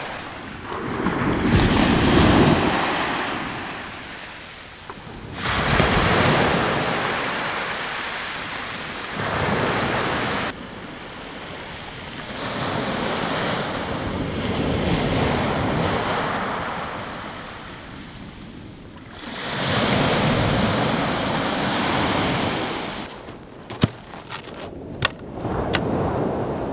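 Sea waves breaking and washing up a shingle beach, swelling and falling back every few seconds, with some wind on the microphone. Near the end, a few sharp clacks of beach stones knocking together as they are set down by hand.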